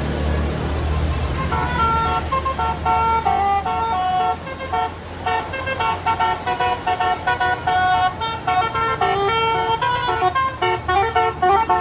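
Bus's telolet Basuri multi-tone musical horn playing a melody of stepped notes, starting about a second and a half in and breaking into quick repeated notes toward the end, over the low running of the bus engine.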